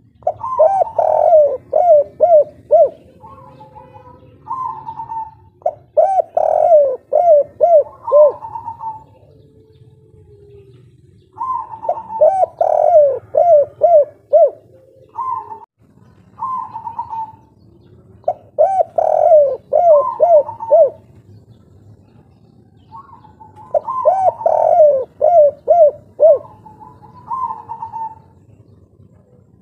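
Spotted dove (tekukur) singing its 'kuk 3' cooing song. There are about five phrases, each a quick run of repeated coos, with short single coos in the gaps between them.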